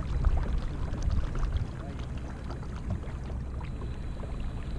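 Water lapping and splashing beside a fishing kayak, with small scattered clicks and knocks over a low rumble; a little busier in the first second or so.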